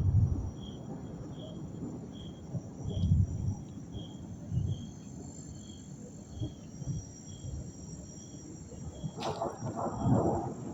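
Insect chirping in an even rhythm, about one short high chirp every 0.7 seconds, over a faint steady high buzz. Low rumbles come and go beneath, with a sharp click about nine seconds in followed by louder rumbling.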